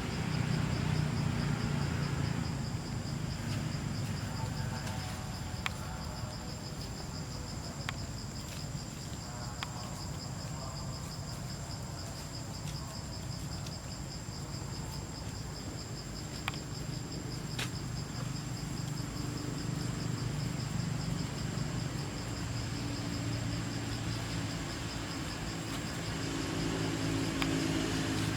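Insects trilling steadily in a high, fast-pulsing tone, over a low rumble with a few faint clicks.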